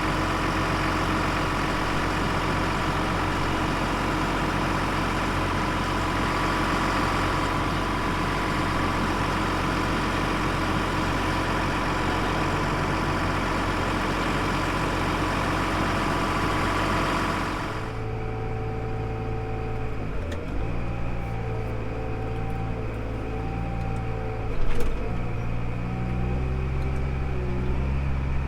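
Tractor engine running with a loud, steady, noisy whine that cuts off abruptly about two-thirds of the way through. What is left is a quieter low engine idle with a wavering tone, and a short knock near the end.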